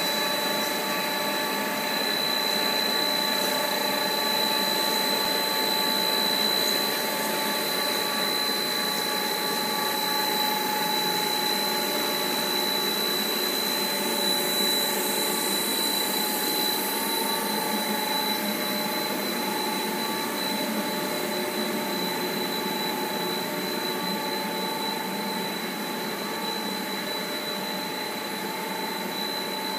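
Plastic corrugated-hose extrusion line running: a steady machine whir with several steady whining tones over it, one of them high-pitched.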